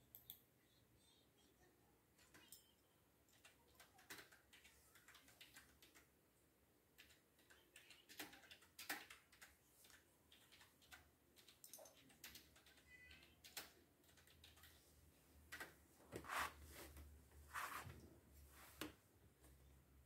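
Small plastic LEGO pieces clicking and tapping as they are handled and pressed together: faint, irregular clicks, with a few louder ones near the end.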